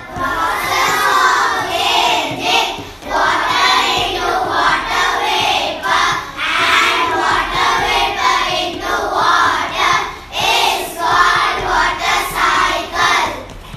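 A class of young children singing together in unison in short, rhythmic phrases.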